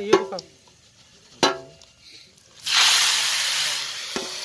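A metal utensil knocks once against the cooking pot with a short ring, then a sudden loud hiss of sizzling starts, easing into a steady sizzle, with a light click near the end as the metal lid goes onto the pot.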